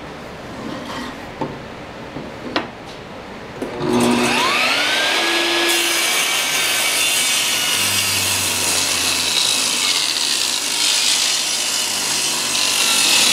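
A few light knocks as a board is set against the fence, then a table saw motor is switched on about four seconds in, its whine rising as the blade spins up, and the saw rips a walnut strip lengthwise, a loud steady cutting noise that lasts to the end.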